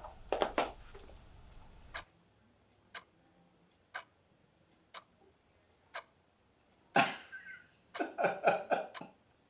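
A clock ticking once a second in a quiet room. About seven seconds in, a person coughs and clears their throat.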